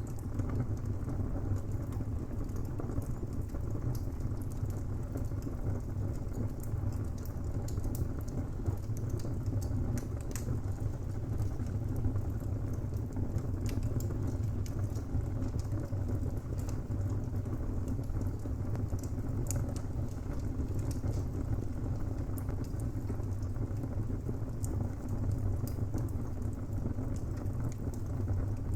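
Wood fire burning in a fireplace: a steady low rumble with frequent small pops and crackles from the burning timber, scattered irregularly throughout.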